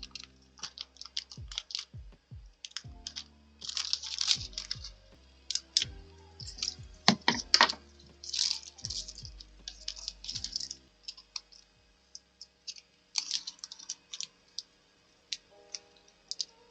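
Paper and stationery being handled by hand: a string of light clicks, taps and short paper rustles, densest around the middle. Soft background music plays underneath and fades out about two-thirds through.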